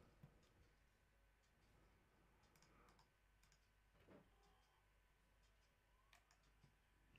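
Near silence: room tone with a few faint computer mouse clicks.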